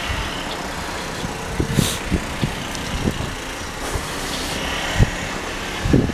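Steady road-traffic noise, with a few dull low thumps scattered through it.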